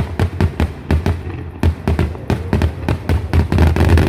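Fireworks going off in a rapid barrage: a dense string of sharp bangs, about five or six a second, over a low rumble.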